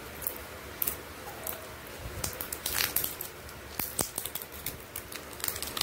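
Plastic screw-top cosmetic cream jars being handled and the lid gripped and twisted to open, giving scattered small clicks, scrapes and crinkles.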